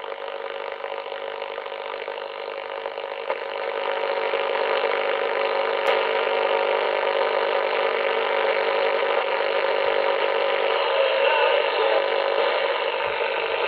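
Icom IC-718 shortwave receiver in AM mode putting out steady hiss and static through its speaker while being tuned across the broadcast bands, with faint steady whistling tones under the noise. It gets louder about four seconds in, with a single click about six seconds in. Very noisy reception on a Wellbrook loop antenna.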